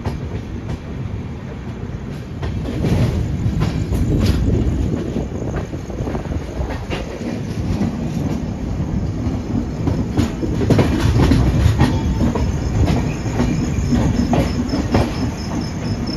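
Indian Railways passenger train rolling over points into a station: wheels knocking and clicking over rail joints and crossings over a steady rumble, with some wheel squeal. A faint, high insect chirping joins from about twelve seconds in.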